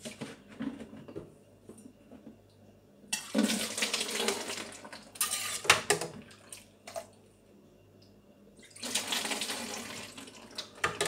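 Metal ladle stirring and sloshing thick, milky homemade liquid laundry detergent in a stainless steel pot, in two spells of a few seconds each. The ladle clinks a few times against the pot about halfway through.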